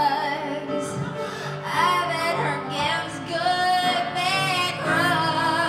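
A woman singing in full voice into a handheld microphone, holding long notes with a wavering vibrato, over piano and guitar accompaniment.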